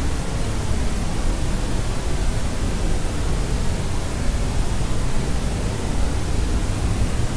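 Steady synthetic noise for sleep, a constant hiss with a deep, bass-heavy rumble, unchanging throughout.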